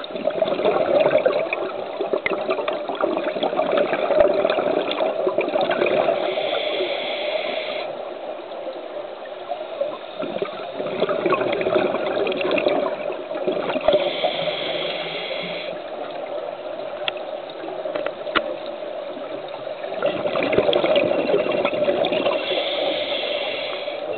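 Scuba diver breathing through a regulator underwater. About every eight seconds comes a hissing inhale of about two seconds, followed by a long bubbling exhale.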